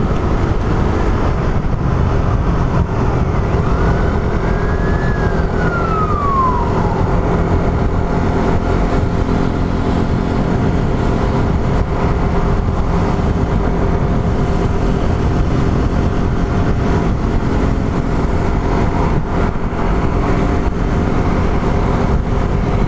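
Suzuki Raider R150 Fi's single-cylinder four-stroke engine running at low revs in slow traffic, ridden gently during its break-in period. About four to seven seconds in, a single high tone rises and then falls.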